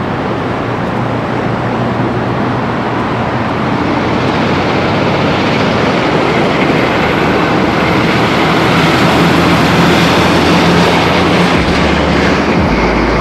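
Boeing 757-200F freighter's twin jet engines passing low overhead on approach: loud, steady jet noise that builds as the plane comes closer, with a faint high whine on top and a deeper rumble near the end.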